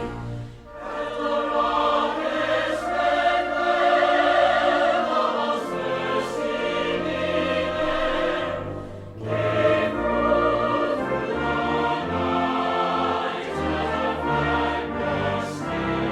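Live 1940s-style song: a singer performing over instrumental backing, recorded from the audience with poor sound. There are brief pauses in the singing just under a second in and again about nine seconds in.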